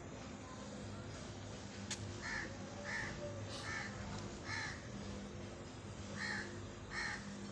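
A crow cawing repeatedly, about six short caws in two runs, over a steady low hum. There is a single sharp click about two seconds in.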